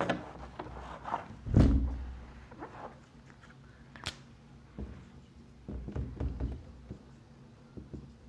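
Whiteboard work: notes being wiped off with a duster, then a marker starting to write, with scattered light taps and rubbing. A dull thunk about a second and a half in is the loudest sound, and a sharp click comes near four seconds.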